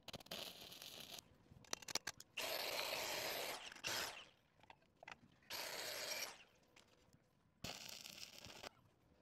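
Stick-welding arc from a 7018 rod crackling and hissing in short bursts, each under about a second, with quiet gaps between: four bursts in all, starting a couple of seconds in, the second of them very brief.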